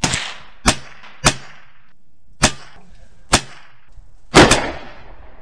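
A string of rifle shots, seven sharp cracks in about four and a half seconds. The first crack and a quick double about four and a half seconds in are the loudest and ring on in echo under the shelter roof. The shorter cracks come between them.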